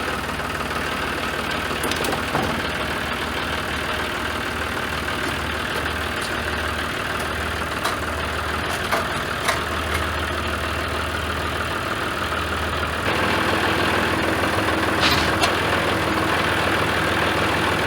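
An engine running steadily with a low hum, getting louder about thirteen seconds in, with a few short knocks over it.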